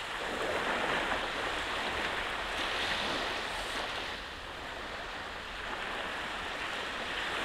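Sea waves washing onto the beach: a steady rush of surf that swells and eases, dipping a little past the middle.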